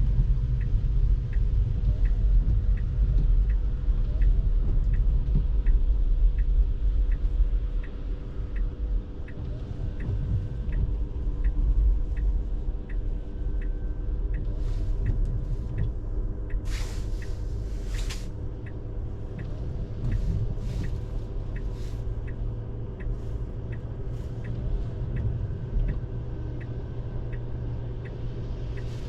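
Low road and tyre rumble inside a Tesla's cabin, with the turn signal ticking steadily a little under two times a second. Past the middle come several short swishing noises, two of them louder.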